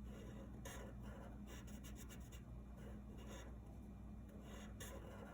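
Faint scratching of a drawing tool on paper in short, irregular strokes, coloring in a small area of a drawing.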